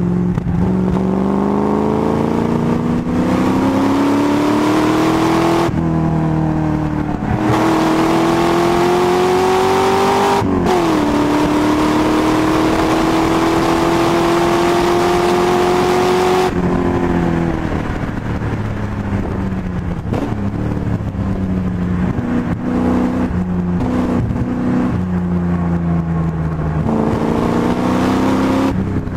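MGB's Rover V8 engine heard from inside the car under hard acceleration, its note climbing through the revs with two sharp drops for upshifts, about 6 and 10.5 seconds in, then a long pull. About 16 seconds in it lifts off and runs lower and uneven through braking and downshifts, then pulls hard again near the end.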